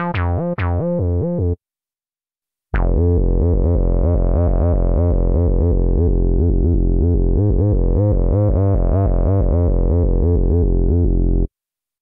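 Korg Mono/Poly V2 software synthesizer playing a bass preset. A few short bass notes come first, then after a brief pause a long line of fast repeating bass notes whose brightness dips and then swells again, stopping abruptly near the end.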